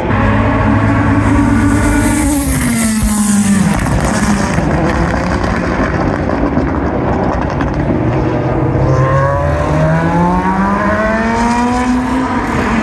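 GT2 race car engine at high revs. About two seconds in it drops sharply in pitch as the throttle closes, with exhaust crackles on the overrun. From about nine seconds it climbs steadily through the revs again under acceleration.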